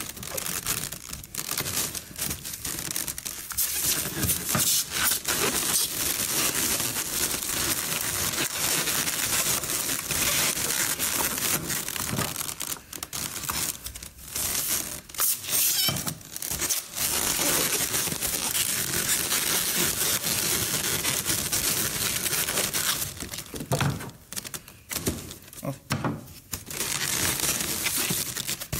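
Inflated latex modelling balloons being twisted and wrapped around a balloon arrangement, rubbing against each other in a dense crinkling, rustling noise. The noise drops away briefly a few times around the middle and again near the end.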